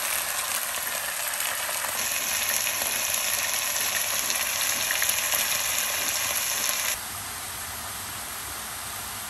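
Lamb cubes sizzling in hot oil as they sear in a pot. About two-thirds of the way through, the sound drops to a quieter, duller sizzle of chopped herbs sautéing in oil.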